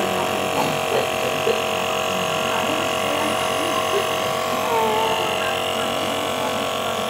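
Compressor nebulizer running with a steady electric hum.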